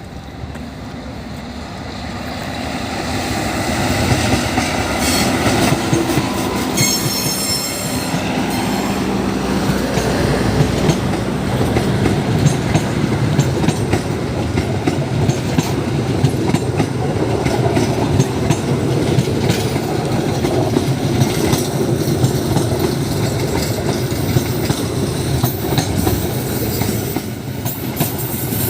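A train approaching and passing close by, growing louder over the first few seconds. Its wheels clatter over the rail joints in a steady rumble, with a brief high squeal about seven seconds in.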